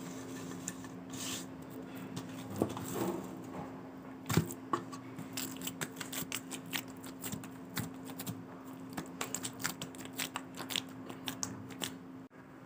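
Hands kneading wet whole-wheat dough in a steel bowl: a string of irregular small sticky clicks and squelches as the dough is pressed and pulled. A steady low hum runs underneath.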